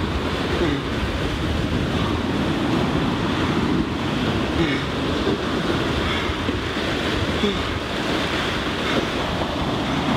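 Waves washing on a shore, with wind: a steady rushing noise with no breaks.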